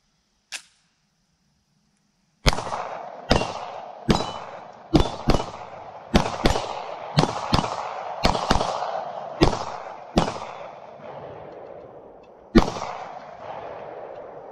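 Canik TP9 SF Elite 9mm pistol fired about fourteen times at an irregular pace, some shots in quick pairs, each followed by a ringing echo. Two faint clicks come before the first shot.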